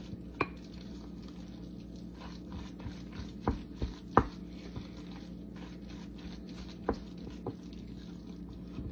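Wooden spoon mashing and stirring a soft sardine-and-mayonnaise mixture in a glass bowl, with about half a dozen scattered sharp knocks of the spoon against the glass, the loudest about four seconds in. A steady low hum lies underneath.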